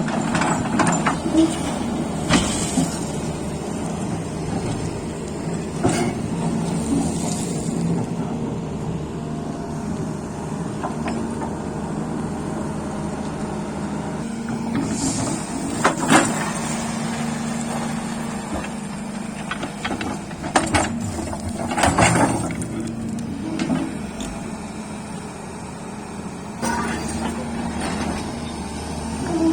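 Heavy-equipment diesel engine running steadily, with several short hisses and a few sharp clanks.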